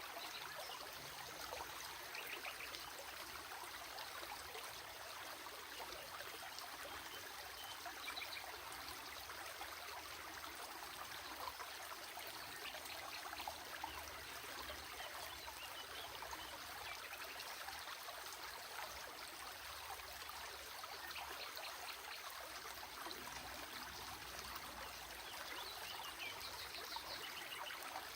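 A small stream running and trickling steadily.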